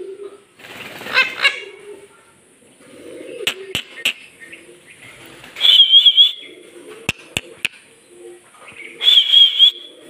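Indian ringneck parakeet calling: a short call about a second in, then two loud warbling screeches, one past the middle and one near the end, with soft low chatter and a few sharp clicks in between.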